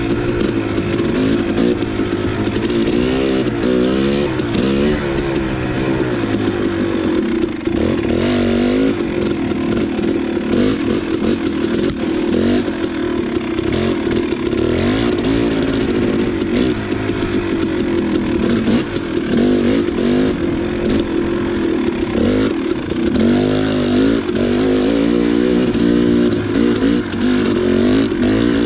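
KTM 300 two-stroke dirt bike engine being ridden, its pitch rising and falling over and over with the throttle.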